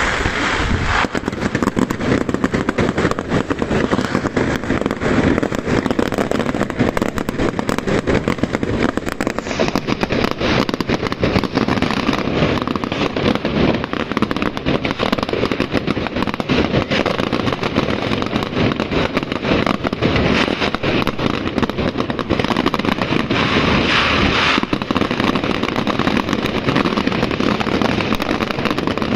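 Castillo aerial fireworks display going off in a dense, continuous run of rapid bangs and crackling, packed together without a break.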